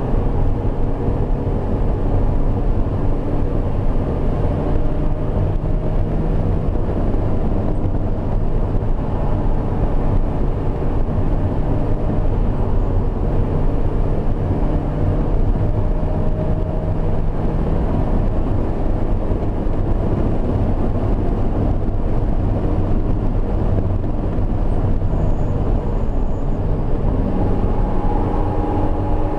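Highly modified BMW E36 3-series engine running hard under load, heard inside its stripped, roll-caged cabin over loud road and wind noise. The engine note shifts in pitch a few times as it is driven through the gears.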